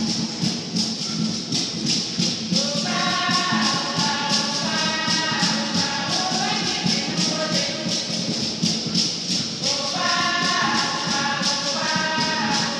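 Women's choir singing over a steady rattling percussion beat; the voices come in strongly about three seconds in and again near ten seconds.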